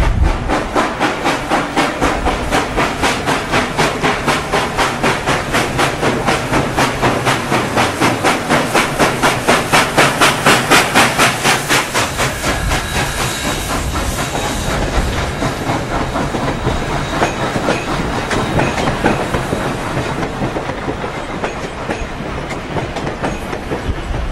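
Steam locomotive working hard as it passes, its exhaust chuffing in a rapid, even beat that is loudest about ten seconds in. After about twelve seconds the passenger cars roll by, their wheels clicking over the rail joints as the sound slowly fades.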